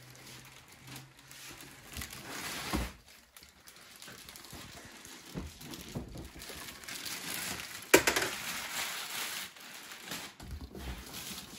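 Packaging rustling and crinkling as a sewing machine is unpacked from its box, with a sharp knock about eight seconds in.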